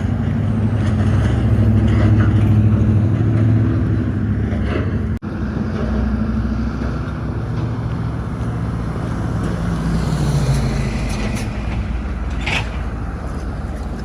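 Steady low rumble of a road vehicle running, as in traffic or aboard a bus. It breaks off for an instant about five seconds in, and a brief high squeak sounds near the end.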